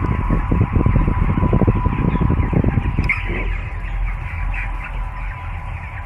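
Electric motor-driven pump running with a fast, rough rattling pulse, which stops about halfway through and leaves a steady low hum. Chicks cheep faintly over it.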